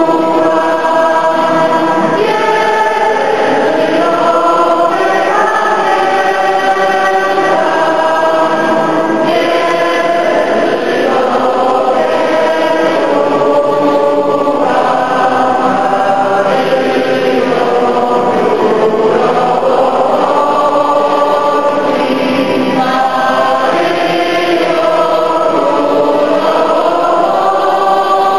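A large congregation singing a slow hymn together, many voices on long held notes that move step by step.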